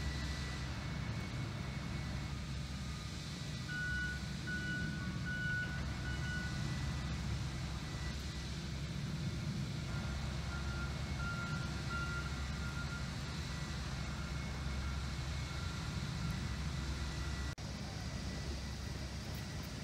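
Diesel engine of a small two-axle industrial switcher locomotive running with a steady low rumble, while thin high-pitched squeals come and go twice.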